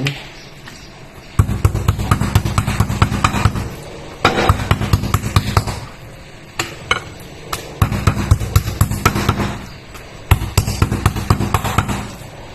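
Sliced chicken breast being pounded thinner: rapid heavy thuds, several a second, in four bursts of about two seconds each with short pauses between.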